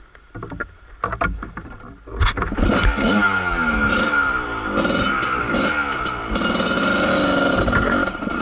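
Kawasaki KDX220 two-stroke dirt bike engine starting: a few knocks, then it catches about two seconds in and revs up and down as the bike rides off.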